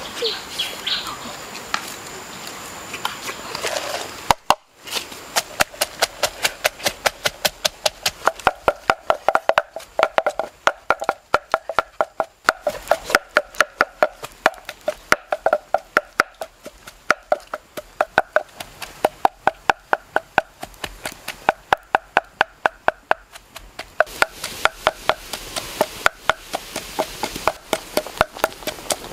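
A pestle pounding in a mortar: a steady run of sharp strikes, about three to four a second, each with a short hollow ring. The strikes begin about four and a half seconds in.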